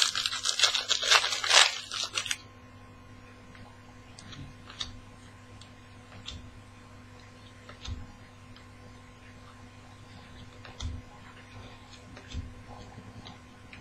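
Trading-card pack wrapper crinkling and tearing for about two seconds, then faint scattered clicks and taps of cards being handled over a steady low hum.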